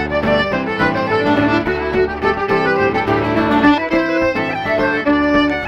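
Lively Irish traditional dance tune on fiddle, accordion and guitar: the fiddle bows a quick melody with the accordion, over steadily strummed guitar chords.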